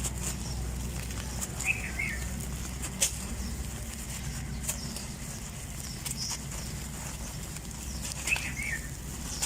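Dry red dirt crumbling, with scattered sharp crunches and cracks every second or two over a steady low hum. Two short high chirp-like sounds come about two seconds in and near the end.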